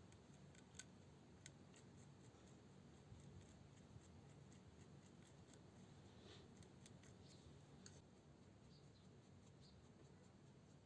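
Near silence with faint, irregular light clicks and taps that thin out after about eight seconds.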